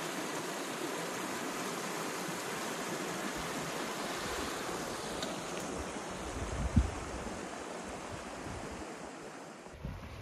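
Small mountain creek running over rocks, a steady rushing. About six seconds in it thins out and low gusts of wind thump on the microphone, one of them loud.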